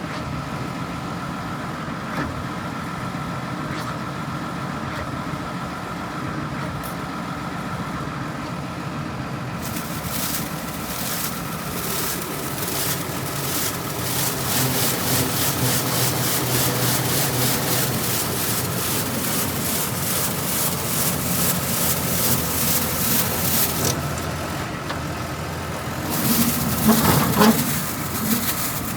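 An engine runs steadily while a Kost Scan SS230 rotary sweeper brush is driven. From about ten seconds in, the brush spins with a loud swishing hiss that pulses about twice a second, until about twenty-four seconds. A few clanks come near the end.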